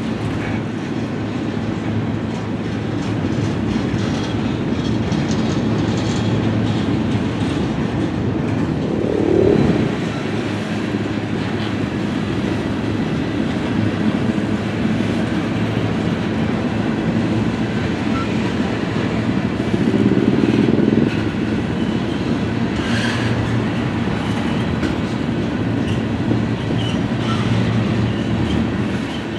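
Freight train cars rolling past: a steady rumble of steel wheels on the rails, swelling louder twice, about ten and twenty seconds in.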